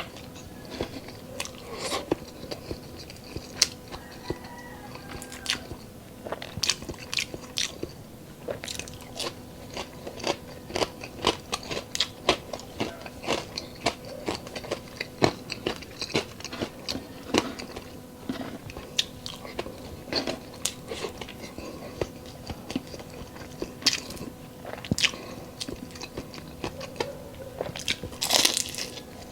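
Close-up crunching and chewing of crispy deep-fried chicharon bulaklak (pork mesentery), with irregular sharp crunches, a denser burst near the end, over a faint steady hum.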